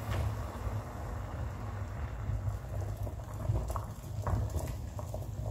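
Pot of water with carrot pieces at a rolling boil, a steady bubbling rumble with a few brief clicks.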